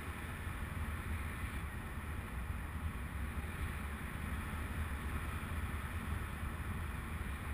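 Steady wind noise on the microphone during flight, a low rumble with a hiss above it and no clear events.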